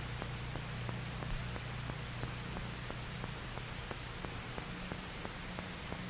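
Steady hiss and low hum of an old film soundtrack, with faint regular ticks about six a second.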